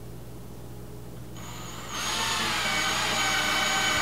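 Cordless drill driving a screw through a black hinge into a wooden gate. The motor whine starts faintly about halfway in, grows louder within half a second, then runs steadily.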